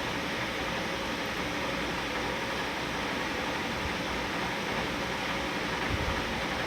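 Steady, even hiss of background room noise with no distinct events, and a soft low bump about six seconds in.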